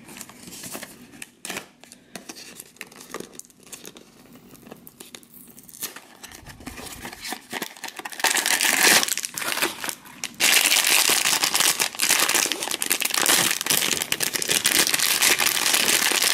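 A cardboard blind box being handled and opened, with small clicks and scrapes, then a foil bag crinkling loudly as it is pulled out and opened. The crinkling starts about halfway through, pauses briefly, and then goes on without a break.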